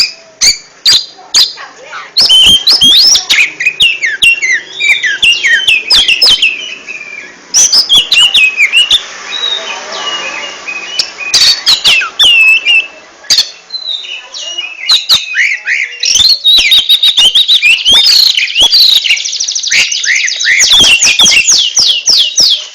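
Oriental magpie-robin (kacer) singing a loud, varied song of quick whistles, chirps and slurred notes, with a fast rattling trill near the end. Sharp clicks sound all through the song.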